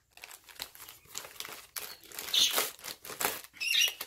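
Plastic poly mailer crinkling and rustling in irregular bursts as it is opened all the way and its contents pulled out, loudest a little past halfway and again near the end.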